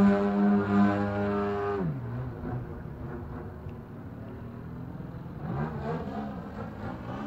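Desert Aircraft DA-120 twin-cylinder two-stroke gas engine on a large radio-controlled aerobatic plane, running at high throttle through a canister exhaust. About two seconds in the throttle is cut sharply to a low idle. Near the end the pitch wavers up and down as power comes back in.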